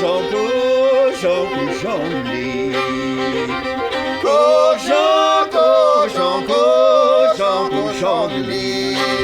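A Cajun fiddle plays the lead melody, its line wavering and sliding, over a steady strummed guitar rhythm.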